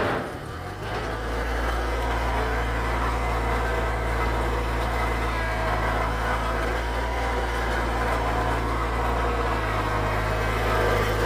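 Mahindra eMax compact tractor's diesel engine running steadily.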